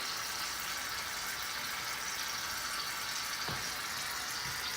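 Aerosol can of shaving cream spraying out with a steady hiss.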